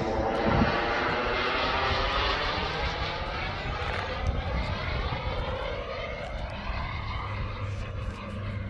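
KingTech K-210G4+ model jet turbine powering a radio-controlled BDX jet in flight: a steady jet rush that sweeps in tone as the plane passes and eases off slightly near the end.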